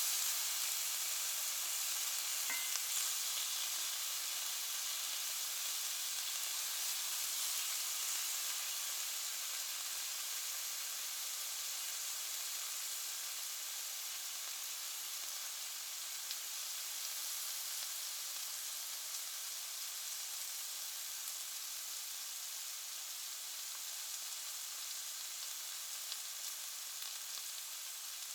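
Meat sizzling in a frying pan: a steady crackling hiss with one sharp pop about two and a half seconds in, easing off slightly in loudness over time.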